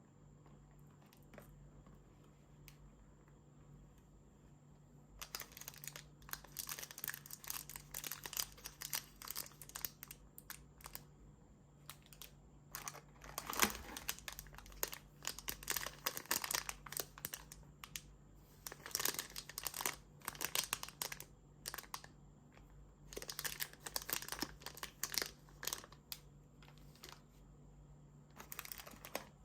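Chocolate wrappers crinkling as they are handled and unwrapped, in bursts of crackling that start about five seconds in after a few faint clicks.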